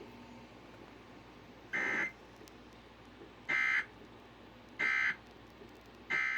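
Emergency Alert System digital data bursts: short, harsh warbling squawks, four of them about a second and a half apart. Coming right after the tornado warning text, they are the end-of-message code that closes the alert.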